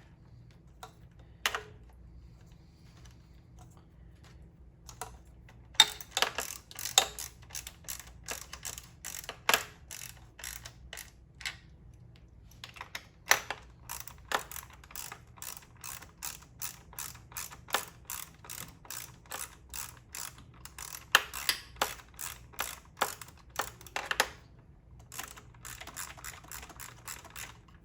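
Hand ratchet clicking in quick runs of strokes with short pauses between, as bolts are run down snug to about 2 to 3 foot-pounds.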